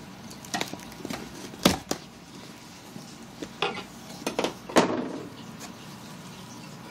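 Cardboard shipping box being opened by hand: packing tape slit with a knife, then the flaps and a cardboard insert scraped and knocked about, with scattered sharp knocks and crinkly rustles, the loudest about a second and a half in and again near five seconds in.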